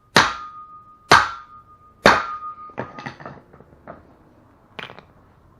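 Hammer blows driving a U-joint bearing cap out of a GM driveshaft yoke: three sharp metallic strikes about a second apart, each leaving a ringing tone, then lighter clinks and knocks.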